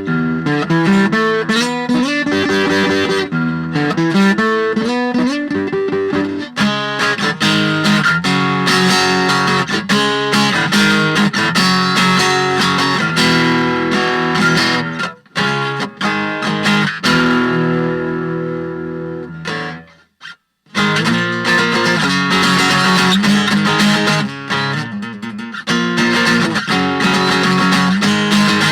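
Washburn WA45CEPAK steel-string electro-acoustic guitar being played: picked note patterns and chords that ring out, with a brief stop about twenty seconds in before the playing resumes.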